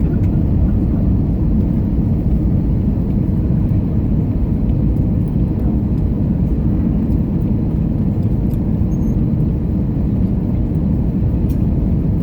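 Steady low rumble of cabin noise inside an Airbus A321neo airliner, even and unbroken throughout.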